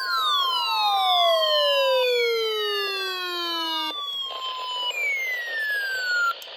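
Several NOAA weather radio receivers alarming at once. A steady weather-radio alert tone stops about two seconds in, while siren-like tones fall steadily in pitch and cut off abruptly near four and six seconds. Hissy radio static comes in near the end.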